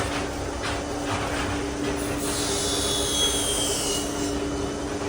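Passenger hoist cage travelling slowly upward under its drive motor, on a short run between closely set floors: a steady hum with a thin high whine that falls slightly in pitch about halfway through.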